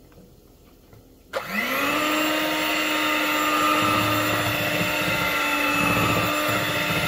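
Handheld electric mixer switched on about a second and a half in, its motor whine rising to speed and then running steadily as the beaters mix flour into thick waffle batter in a plastic bowl. From about four seconds in there is a low pulsing churn as the beaters work through the batter.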